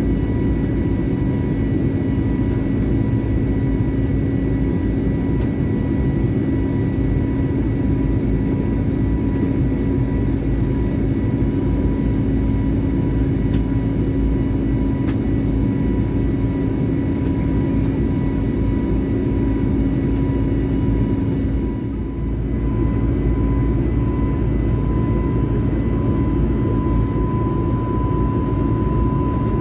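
Airliner cabin noise in flight: a steady roar of engines and rushing air with a constant low hum and a fainter high tone, dipping briefly about three quarters of the way through.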